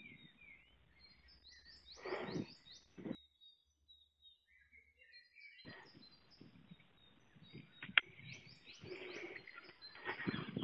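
Small birds chirping in short, repeated high notes, faint, over soft outdoor noise. There is a single sharp click about eight seconds in.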